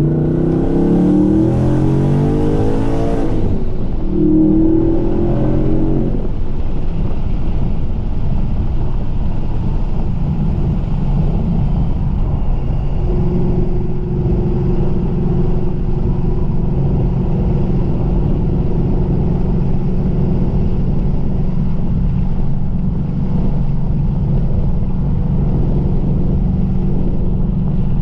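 Supercharged 2019 Ford Mustang GT's V8 with long-tube headers accelerating, its note climbing for about three seconds, dipping, then climbing briefly again. After about six seconds it settles into a steady drone.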